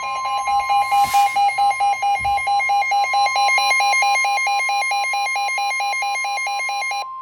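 NOAA Weather Radio's 1050 Hz warning alarm tone, one steady loud tone sounding for about seven seconds to announce a warning. Over it a second alarm tone beeps rapidly, about five pulses a second, and stops shortly before the steady tone does.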